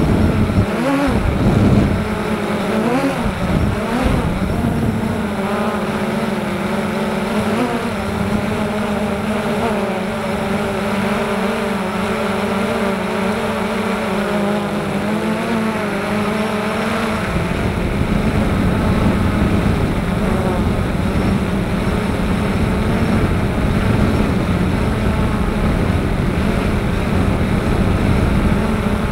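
Electric motors and propellers of a small remote-controlled aircraft, heard through its onboard camera: a steady buzzing whine that wavers up and down in pitch over the first few seconds as the throttle changes, then holds steady. From a little past halfway, wind rumble on the microphone joins it.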